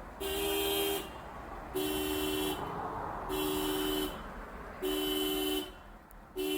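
Car horn sounding in regular blasts, each under a second long and about one and a half seconds apart, each blast a two-note chord. The uploader puts the honking down to the car's battery dying.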